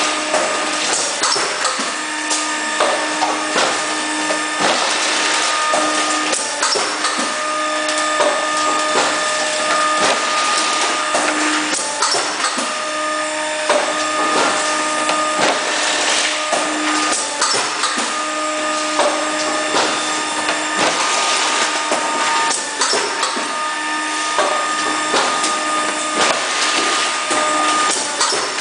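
Cake-box label applicator machine running: a steady mechanical hiss with motor hums that start and stop every second or two, and frequent sharp clicks.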